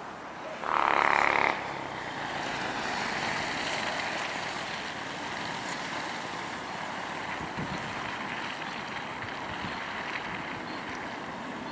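Steady rushing roar of a Boeing 747-8 business jet's four GEnx-2B turbofans climbing after takeoff, heard from the ground. About a second in, a loud honk-like pitched blast cuts across it for under a second.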